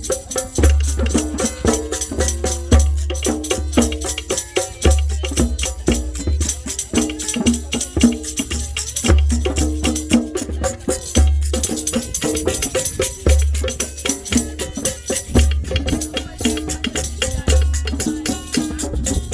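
Music with fast hand percussion and jingles over a melodic line, and a deep bass note that comes round about every two seconds.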